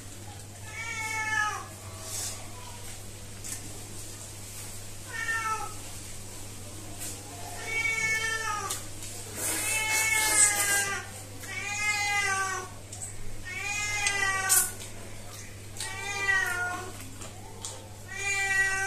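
A domestic cat meowing over and over: short meows that rise and fall in pitch, coming about every two seconds in the second half.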